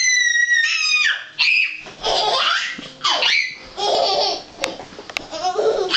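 A toddler screaming with laughter: a long, high-pitched squeal at the start, then repeated bursts of squealing giggles.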